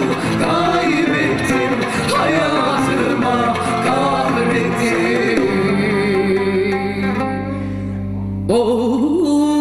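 A woman sings a Turkish song live into a microphone, her voice wavering, over a band of plucked strings and electric bass. Past the middle she holds one long note over a sustained bass note, then starts a new phrase near the end.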